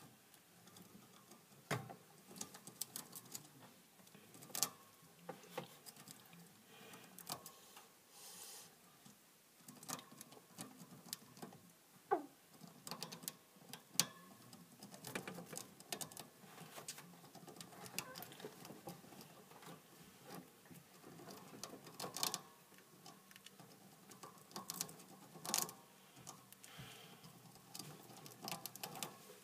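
Hamster eating noisily: irregular sharp crunches and clicks of chewing and gnawing on food.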